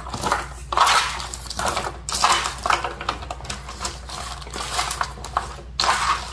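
Hands tossing raw green beans coated in soy sauce marinade on a parchment-lined baking sheet: rustling, clicking scrapes as the beans tumble over each other and the paper, in repeated uneven strokes.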